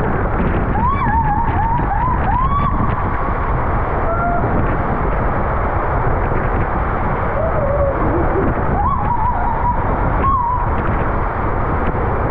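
Water rushing and a raft sliding fast down an enclosed water-slide tube, a loud steady rush. Several short wavering squeals rise over it, twice early on and twice near the end.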